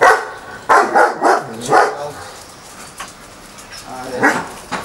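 Dog barking: a quick run of about five barks in the first two seconds, then one more near the end.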